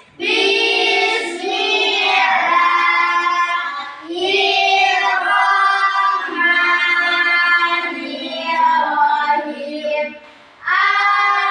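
A class of children chanting a Muslim prayer together in Arabic, in a drawn-out sing-song unison, in long held phrases with short breaks about four seconds in and near the end.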